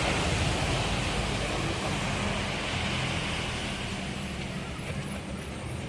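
Ocean surf breaking on the beach, a steady wash of noise that slowly eases.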